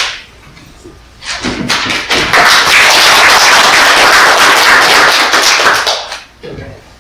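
Audience applauding: scattered claps start about a second in, swell into full steady applause, and die away near the end.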